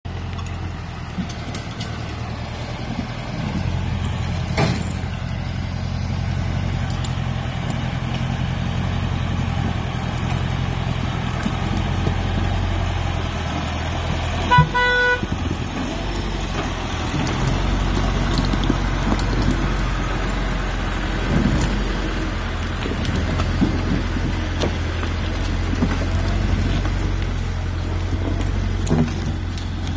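Forest tractor's engine running steadily under load as it crawls over rough ground, with one short horn toot about halfway through and a sharp knock a few seconds in.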